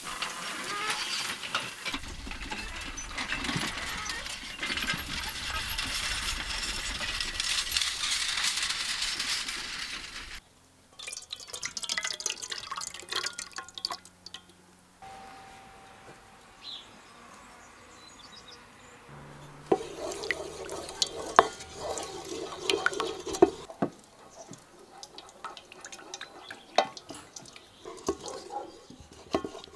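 Kitchen work sounds: water running for about ten seconds, then stops suddenly, followed by scattered clinks and taps of dishes and utensils.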